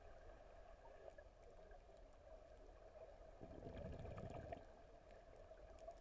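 Faint, muffled underwater ambience picked up by a camera below the surface: a steady low hum with scattered faint crackles. It swells briefly into a louder rush of water noise about three and a half seconds in, then settles back.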